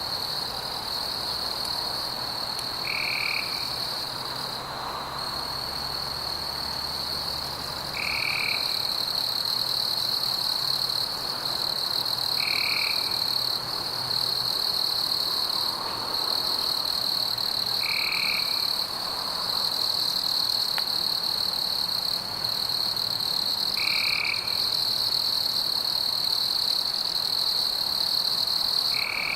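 Night ambience: a steady high-pitched insect trill, with a short frog call repeating about every five seconds.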